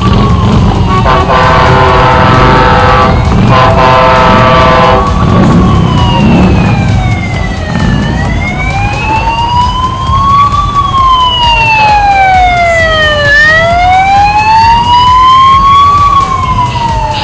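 A heavy truck's horn blasts twice, each about two seconds long, over the rumble of a passing tanker truck's engine. Then an escort siren wails, sweeping slowly up and down about every five seconds.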